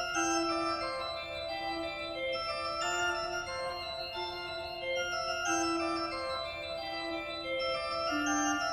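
Background music: a slow line of held, organ-like keyboard notes, changing pitch about once a second at a steady level.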